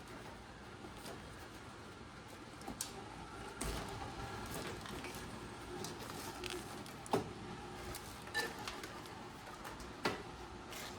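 Scattered clicks, knocks and light rattling as a car's wiring harness and its connectors are worked loose and handled, with a few sharper knocks in the second half.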